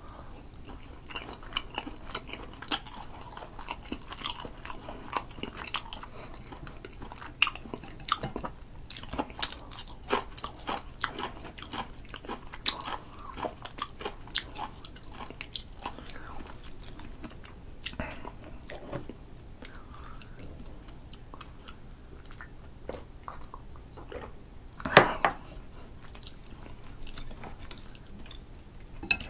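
Close-miked mouth sounds of a person chewing grilled spicy sea eel: irregular wet chewing and biting clicks, with one louder sound about 25 seconds in.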